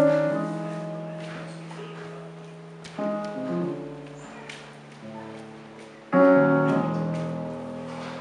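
Slow piano chords played on a Nord Stage 2 EX stage keyboard: a chord struck at the start, another about three seconds in and a third about six seconds in, each left to ring and fade, with a few softer single notes between.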